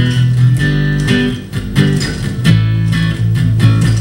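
Live band playing an instrumental passage: strummed guitar chords in a steady rhythm over a bass guitar line, with no singing.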